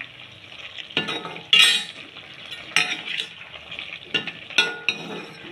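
A metal spoon scraping and clattering against a pan as chopped vegetables are stirred, in about five separate strokes, the loudest about a second and a half in. A faint sizzle from the hot pan runs underneath.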